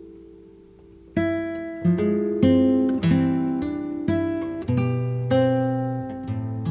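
Background music: an acoustic guitar picking notes and chords, each one ringing and fading, after a held chord dies away during the first second.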